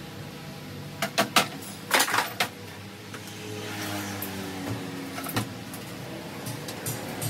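Several sharp knocks and clicks over a low steady hum: a quick run of three about a second in, a close cluster about two seconds in, and two more a little past five seconds.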